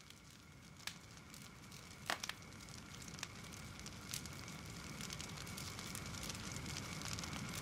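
Crackling fire fading in: scattered sharp pops and crackles over a low rumbling hiss, growing steadily louder, with the loudest pops about two seconds in.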